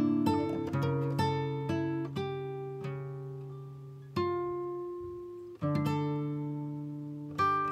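Background music: a solo acoustic guitar plucking notes that ring and fade, thinning to a few single held notes in the middle before a new phrase begins.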